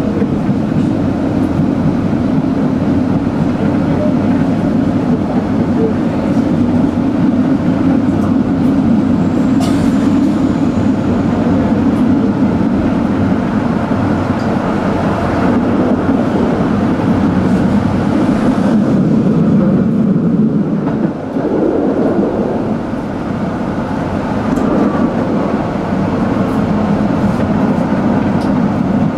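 Tram running along its rails with a steady rumble of wheels and motors, which dips briefly about two-thirds of the way through.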